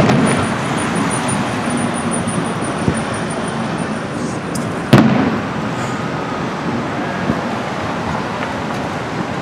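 Distant fireworks shells bursting: two loud booms about five seconds apart, each trailing off in a short low rumble, over a steady background noise.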